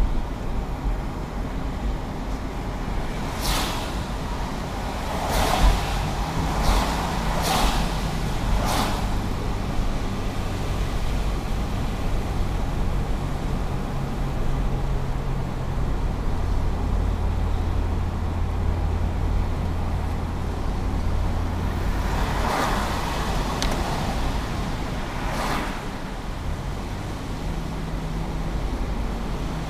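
Steady engine and tyre noise inside a car driving on a wet road. Brief hissing whooshes come several times, clustered around four to nine seconds in and again around twenty-two to twenty-six seconds in.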